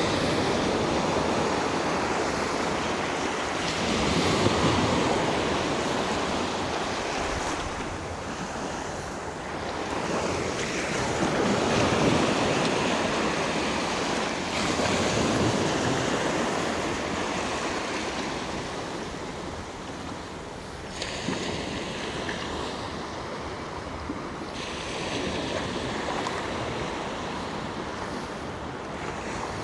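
Sea waves breaking and washing in, the rush swelling and falling every few seconds, with wind on the microphone.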